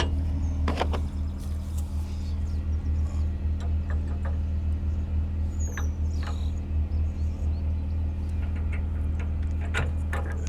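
Pickup truck's engine idling steadily, with a few scattered clicks and knocks.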